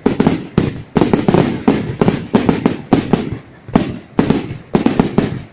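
Fireworks going off in quick succession: a steady run of sharp bangs, about three a second, each trailing off with an echoing tail.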